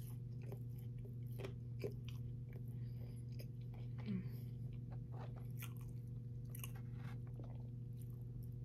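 Close-miked chewing of Chick-fil-A waffle fries: irregular small crunches and mouth clicks as the fries are bitten and chewed, over a steady low hum.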